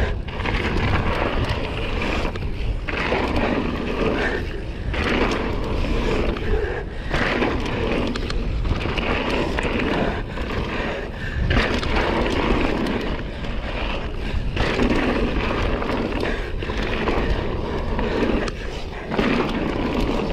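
Mountain bike ridden fast down a loose, rocky dirt trail: tyres rolling and scrabbling over dirt and stones, a continuous rough noise that drops briefly every few seconds.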